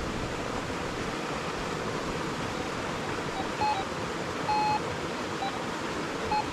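Steady rushing of a small waterfall, with a Gold Monster 1000 metal detector giving several short, high beeps about halfway through and again near the end as it passes over a metal target.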